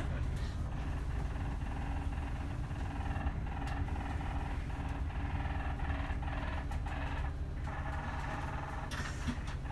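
Steady low rumble of a city bus's engine and running gear heard inside the driver's cab as the bus drives slowly, with a faint hum and a few light clicks.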